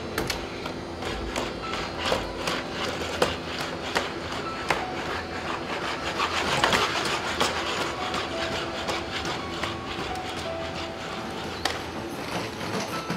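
Boston Dynamics Spot quadruped robots walking: the whir of their electric motors with short whines, and many sharp clicks and knocks from their feet and joints on a hard floor.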